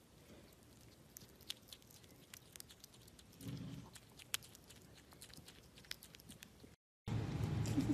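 Common marmoset chewing and biting a piece of food: faint, irregular small clicks and crunches. Near the end the sound drops out briefly, then a louder steady background noise comes in.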